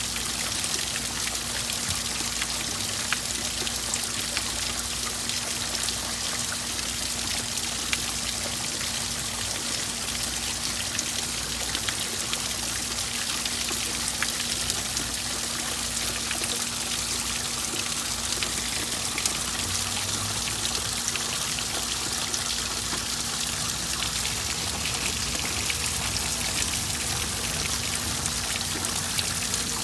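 Water pouring and trickling steadily into a garden pond from a clay-pot spout and a rock waterfall, with raindrops falling on the pond surface as many small light ticks. A faint steady hum runs underneath.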